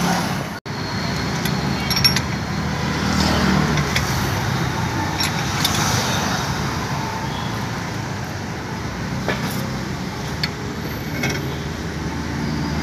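Steady vehicle and traffic noise with a low hum, with scattered sharp metallic clinks of a spanner and socket wrench working a bolt at an auto rickshaw's rear brake drum.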